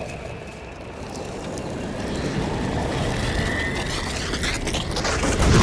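Action-film sound effects: a rumbling, rushing roar that swells steadily louder, with a few sharp cracks near the end.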